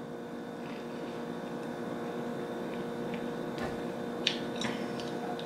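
Steady room hum with a few soft, brief clicks between about three and five seconds in.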